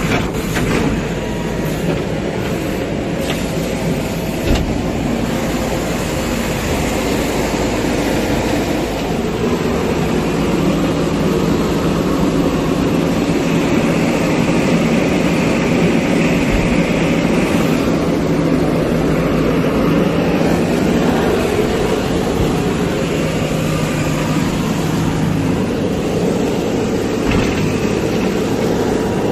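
A backhoe loader's diesel engine runs steadily under hydraulic load while its backhoe bucket scrapes mud from a tipper truck's raised steel body. A few knocks from the bucket against the steel come in the first five seconds, the sharpest about four and a half seconds in. The engine's drone strengthens from about nine seconds in and eases again a few seconds before the end.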